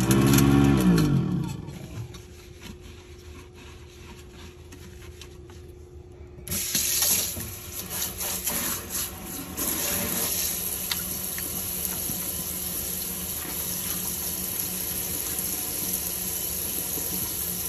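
Kitchen faucet water running into a stainless steel sink and down the drain. It comes on about a third of the way in and then runs steadily. At the start, a loud sound with a falling pitch dies away over about two seconds.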